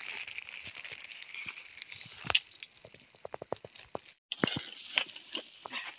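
Footsteps crunching through dry leaves and twigs: irregular crackles and snaps, with a brief gap about four seconds in.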